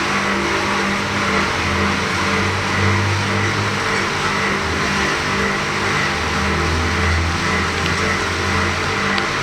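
Pressure washer running steadily, its motor hum under the hiss of the water spray.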